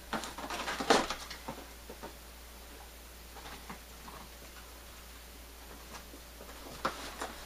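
Cardboard McNuggets boxes being handled and a box lid opened: a brief clatter in the first second, then soft cardboard rustling and two light knocks near the end.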